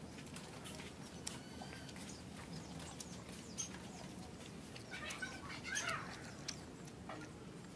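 Scattered sharp mouth clicks and smacks of someone eating hard-boiled eggs, over steady low background noise. A short burst of high chirping comes about five seconds in.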